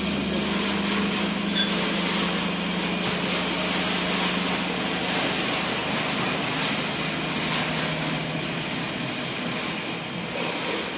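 Steady hum and hiss of an induction shaft-fitting machine's power cabinet running, with a low steady tone that fades out after about eight seconds.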